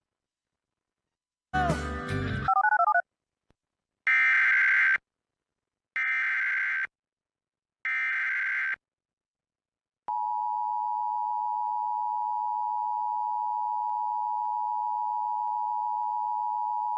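A brief burst of music ending in a warbling tone, then an Emergency Alert System activation: three one-second SAME header data bursts about two seconds apart, followed by the steady two-tone EAS attention signal starting about ten seconds in. The alert announces a National Weather Service flood warning.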